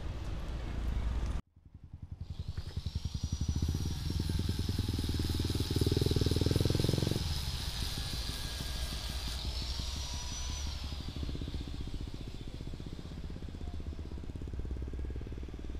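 A motorcycle engine running close by with a rapid low pulsing that grows louder and stops about seven seconds in, alongside a thin high whine that holds steady and briefly rises and falls near ten seconds. The sound cuts out abruptly about a second and a half in, just before this begins.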